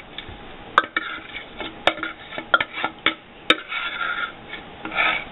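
A utensil scraping and knocking against a plastic food processor bowl while sticky date-and-nut crust mixture is scooped out into a dish: irregular scrapes with sharp clicks, about one or two a second.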